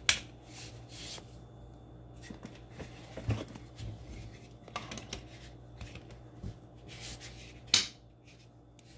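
Scattered clicks and knocks of plastic vacuum parts being handled as an attachment is fitted onto the end of the vacuum, with the sharpest knock near the end.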